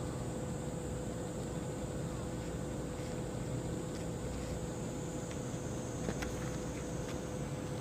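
Boat diesel engines running steadily: a constant low hum with a steady mid-pitched tone through it, and a few faint clicks near the end.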